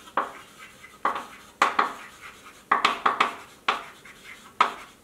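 Chalk writing on a chalkboard: clusters of sharp taps and short scratches as each letter is written, in quick bursts about a second apart.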